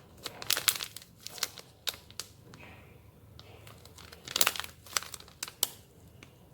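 Paper crinkling and crackling as it is handled, in two bursts: one over the first two seconds and another from about four to six seconds in.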